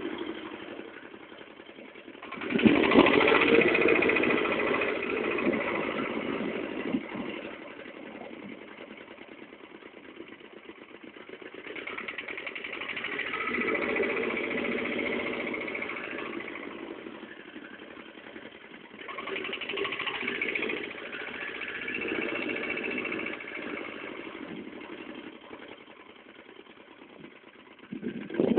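Tobata walking-tractor (two-wheel tiller) engine running, growing louder and quieter several times.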